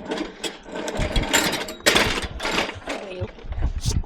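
Irregular metal clattering and knocking as a scrap bicycle is handled and loaded onto a truck bed among other scrap metal.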